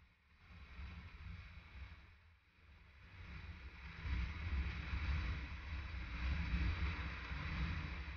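Wind rushing over a motorcycle-mounted microphone while riding on a gravel road, with gusty low rumble and road noise. It grows louder about four seconds in.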